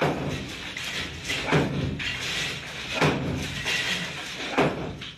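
Repeated heavy thuds or bangs, one about every second and a half, four in all, over a steady background noise.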